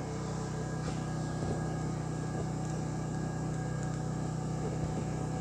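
Steady low electrical machine hum, a drone with several even overtones that holds unchanged throughout.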